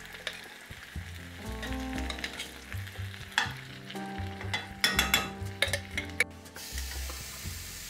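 White beans poured into a hot cast-iron skillet of frying sausage, sizzling in the pan. In the middle, a metal spoon clinks and scrapes against the glass jar a few times as the last beans are scraped out.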